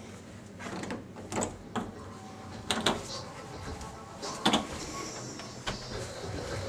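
A door being opened, then footsteps going down a flight of stairs: a few uneven knocks and thumps, the loudest about four and a half seconds in.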